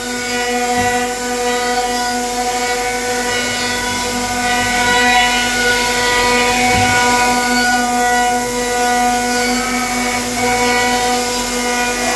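CNC router spindles running steadily while milling a wooden gun stock: a constant whine with evenly stacked overtones over a hiss of cutting noise.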